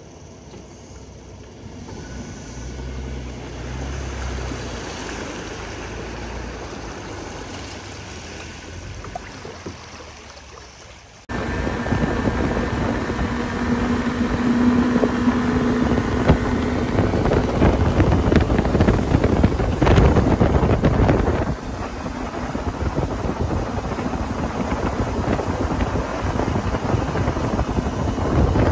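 Motorboat under way on its Evinrude 85 hp outboard, with wind buffeting the microphone and water rushing past the hull. The sound is quieter at first, then jumps abruptly louder about eleven seconds in and stays loud.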